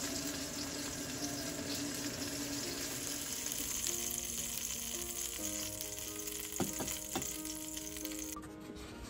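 Oil sizzling in a hot frying pan, a steady hiss that cuts off suddenly near the end. Soft background music with held notes comes in about halfway, and two light clicks sound late on.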